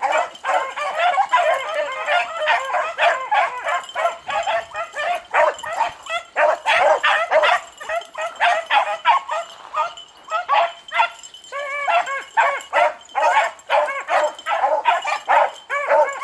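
A pack of beagles baying while running a rabbit: many overlapping yelps and barks in a continuous chorus, the sound of hounds in full cry on a hot track.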